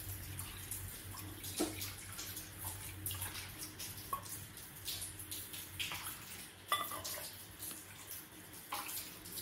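Water poured from a steel measuring cup into a steel pot of pearl millet flour, splashing, with several short clinks of the cup against the pot.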